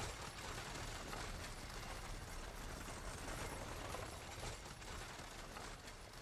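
Faint, steady rattling and rumbling of a moving stagecoach, fading slowly toward the end.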